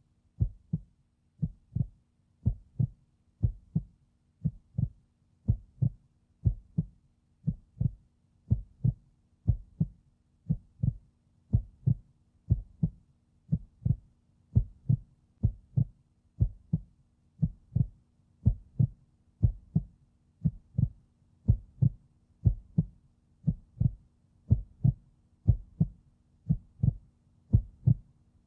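A slow heartbeat: steady pairs of low thumps, about one pair a second, over a faint low hum.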